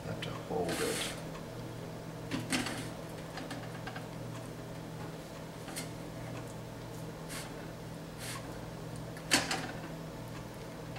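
Rubber spatula scraping and dragging over a crisp baked pie crust while cream cheese is spread on it, in short scratchy strokes a second or two apart, with a sharper knock about nine seconds in. A low steady hum runs underneath.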